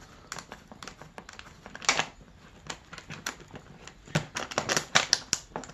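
10 mm ratcheting combination wrench clicking as it loosens small nuts: a run of quick, irregular clicks, thickest about four to five seconds in.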